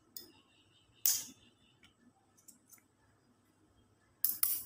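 Scissors snipping through disposable plastic spoons: sharp plastic snips, a strong one about a second in and two close together near the end, with small ticks between.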